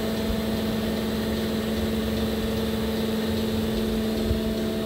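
High Purity Northwest Mini-MOPS transformer oil purification system running as it processes oil, its pumps and motors giving a steady hum with a few held tones.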